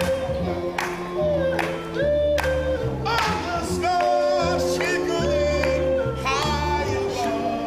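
A small group of men singing in close harmony, with a deep bass line under the held chords and a faint beat about once a second.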